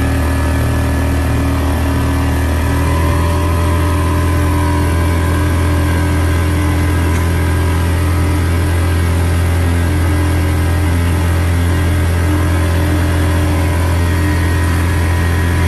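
Boat's outboard motor running steadily under way, a loud, even drone.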